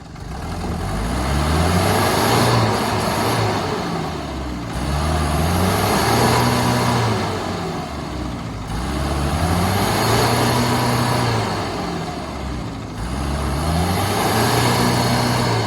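Old truck's engine revving hard and pulling smoothly without coughing. The pitch climbs, holds, then drops back, four times in a row about four seconds apart.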